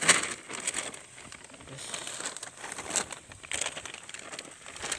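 Plastic rice sack crinkling and crackling as it is handled and opened by hand, in irregular sharp rustles, the loudest just at the start.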